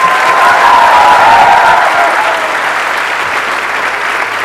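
Large audience applauding and cheering. It is loudest in the first couple of seconds, then the clapping gradually dies down.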